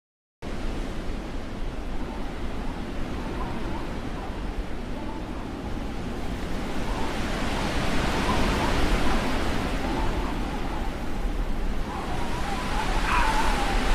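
Blizzard wind blowing hard, a dense steady rush that cuts in abruptly about half a second in and slowly swells. Thin whistles sound through it, with a higher whistle rising and falling near the end.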